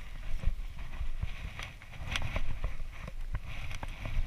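Irregular knocks and clatter of a landing net and fishing rod being handled against a boat's gunwale while a fish is landed, over a low steady rumble.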